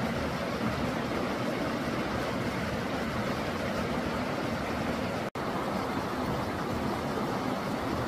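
Steady rush of a shallow, stony stream flowing over rocks, with a momentary cut-out of all sound about five seconds in.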